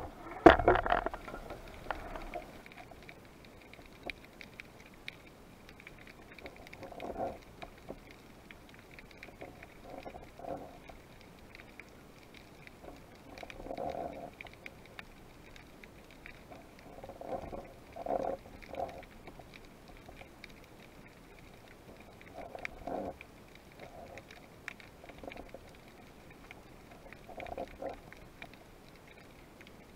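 Muffled underwater sound as heard through a camera housing: a loud knock and rustle about half a second in, then short soft swishes of water movement every few seconds over a faint steady hiss.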